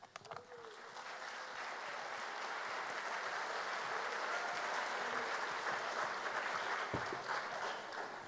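Large audience applauding, building over the first second or two and tapering off near the end. A single low thump is heard about seven seconds in.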